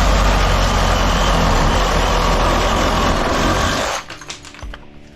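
A power saw cutting through the copper tubes and aluminium fins of a scrap radiator: a loud, harsh, steady noise that stops about four seconds in, followed by lighter clicks and rattling of metal.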